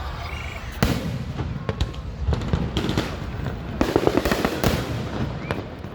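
Aerial fireworks going off: a sharp bang about a second in, followed by crackling, with a denser flurry of crackles around four seconds in.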